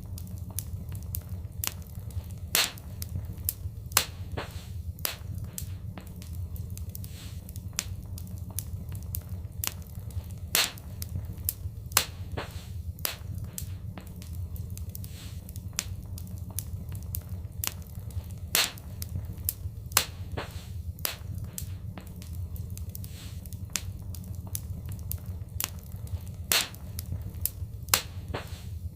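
Fireplace fire crackling: many small snaps and pops over a steady low rumble, with a few louder pops every second or two, the pattern repeating about every eight seconds as a loop.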